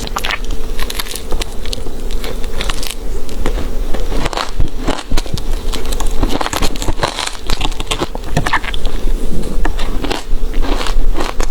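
Ice being bitten and chewed close to the microphone: dense, irregular crunching and crackling with no pause, over a faint steady hum.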